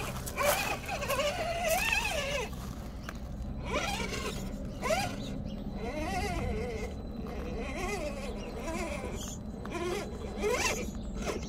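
Electric motor and gearbox of an Absima Sherpa RC crawler whining, rising and falling in pitch with the throttle, with several quick rising spin-ups, as it crawls over rocks, with short clicks of tyres on stone.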